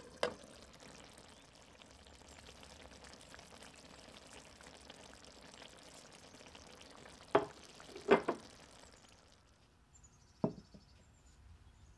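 Eggplant and tomato stew simmering in a pan, a steady bubbling hiss, with a few sharp clinks and knocks of cookware. The bubbling stops a little before the end; a single knock follows, and faint high chirps can be heard.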